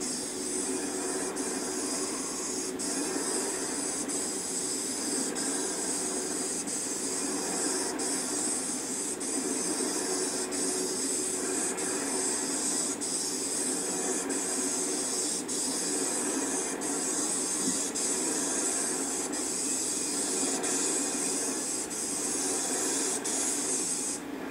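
Paint spray gun spraying roof tiles: a steady, loud hiss over a lower hum, which cuts off suddenly near the end as the trigger is released.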